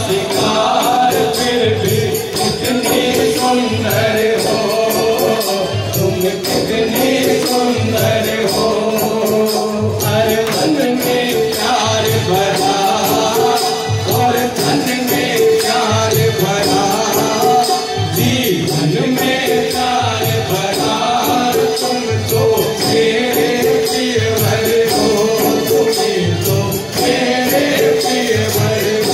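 Live Rasiya, a Braj Holi folk song: a man sings into a microphone with other voices joining in. Under the singing, a large hand-held drum beats about once a second, with jingling percussion and steady held tones.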